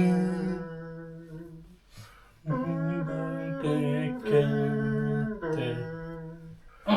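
A hymn tune in long held notes, one fading out over the first two seconds, then after a short break a run of sustained notes.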